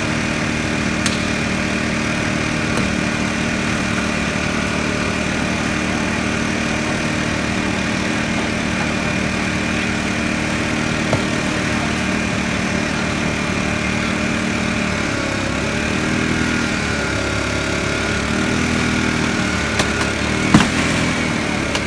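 Small engine of a hydraulic rescue-tool power pack running steadily. From about two-thirds of the way in its note wavers up and down as the tool takes load. A single sharp crack comes near the end.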